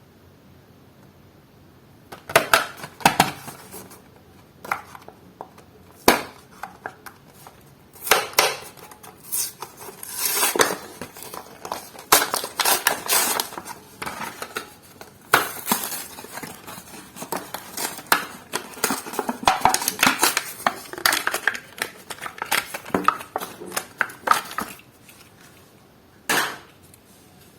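Diecast toy car packaging being handled and opened: plastic blister and card crackling and crinkling, with irregular clicks and clatter. It starts about two seconds in and dies away near the end.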